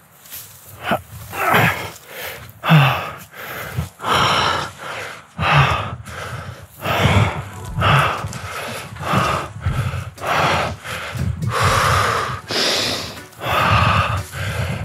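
A man breathing hard close to the microphone, with heavy panting breaths coming about once or twice a second and a few voiced grunts among them, from the strain of climbing a steep rock scramble.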